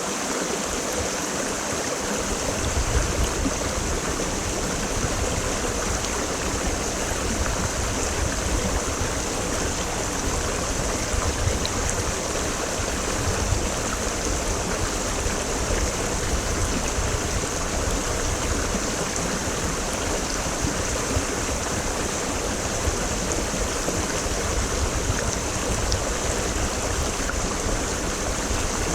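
Mountain creek running steadily over rocks, a continuous rushing of water. A deeper low rumble joins about two seconds in.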